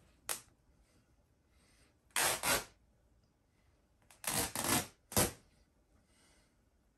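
Plush fabric and seams of a large stuffed toy dog being ripped apart by hand: a brief rip just after the start, two longer tears about two and four seconds in, and a last short rip.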